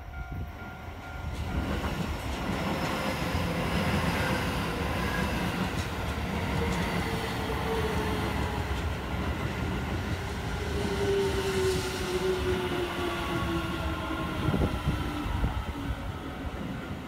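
Keio Line electric commuter train running past on the track, wheels rumbling on the rails while its motor whine falls slowly in pitch as the train slows for the station. A few clacks near the end.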